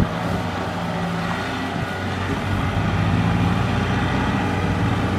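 Diesel engines of a Kubota combine harvester and a farm tractor running steadily.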